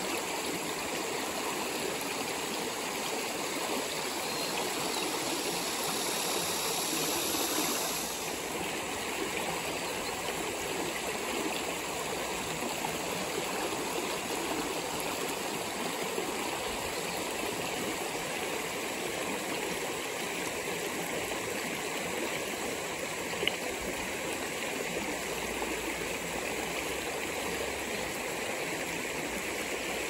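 Shallow creek running over a bed of pebbles and stones, a steady rush of water, a little louder for the first eight seconds. One brief tick about two-thirds of the way through.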